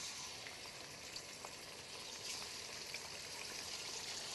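Chicken wings deep-frying in hot oil in a wok: a steady, faint sizzle with small scattered crackles, growing a little louder.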